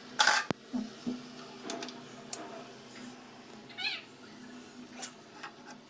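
Glass-top gas stove being handled and shifted on a granite counter: a short scrape and a sharp click near the start, then a few light knocks over a steady low hum.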